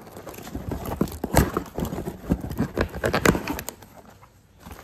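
Irregular knocks and taps of boxes and packaging being handled, with two louder knocks about a second and a half in and just over three seconds in.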